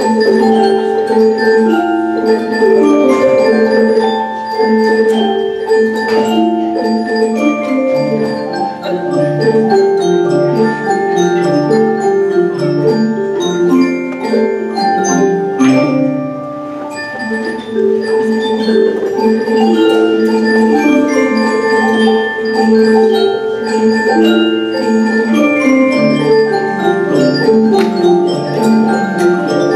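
Music played on mallet percussion, with quick rising and falling runs of short ringing notes. It thins out briefly about halfway through.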